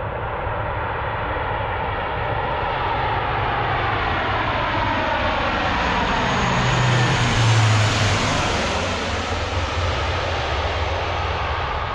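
Lockheed C-130J Super Hercules four-engine turboprop transport flying past. The engine sound builds to its loudest about seven or eight seconds in, then eases off.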